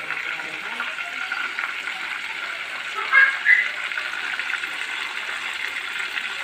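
Chicken deep-frying in hot oil: a steady sizzle, with two short high-pitched sounds about three seconds in.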